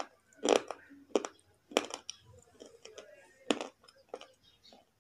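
Slate pencil being bitten and chewed right at the microphone: a series of sharp, brittle crunches, several in the first two seconds, then a pause and a few more, with softer mouth and chewing sounds between.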